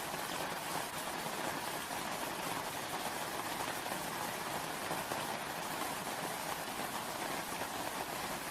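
Steady rainfall, a dense even patter of raindrops.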